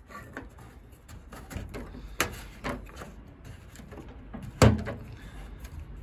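Plastic drain-pump filter plug of a Beko washing machine being turned by hand and screwed tight into its housing: scattered plastic clicks and scrapes, with one sharper, louder click about three-quarters of the way through.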